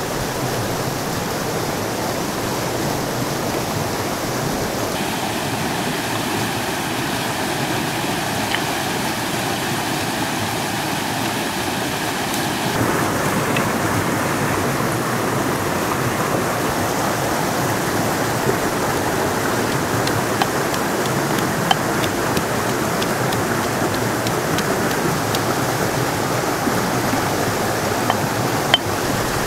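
River water flowing steadily over a stony bed, with a few faint ticks in the second half.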